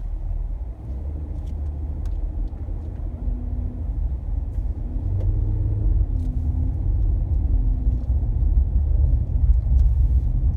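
Low rumble of a car's engine and tyres on the road, heard inside the cabin as it drives slowly, growing a little louder in the second half.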